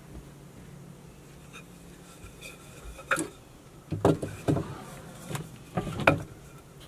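Wooden boards knocking and clattering as they are picked up and set against one another on a table, a string of sharp knocks from about three seconds in. Before that only a low steady hum.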